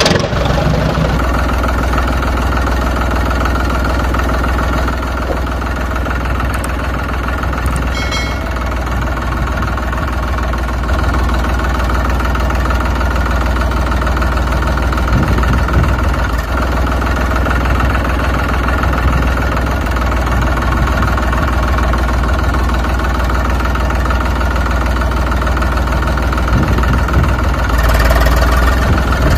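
Diesel tractor engine running steadily at a low, even pace; it gets slightly louder near the end.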